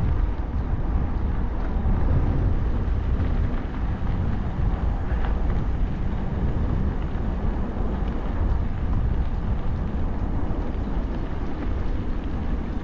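Steady wind rushing over the GoPro Hero 11's microphone on a moving bicycle, a constant low rumble with no distinct events.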